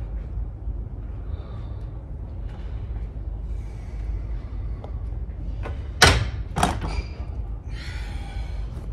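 Two sharp knocks a little past halfway, about half a second apart, the first much louder, over a steady low rumble.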